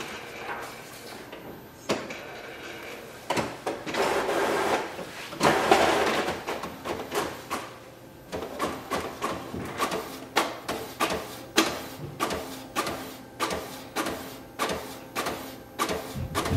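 Epson WorkForce WF-7710 inkjet printer running a color copy. It starts with a few seconds of mechanical whirring, then from about eight seconds in the print head carriage shuttles back and forth, giving a regular knock about twice a second.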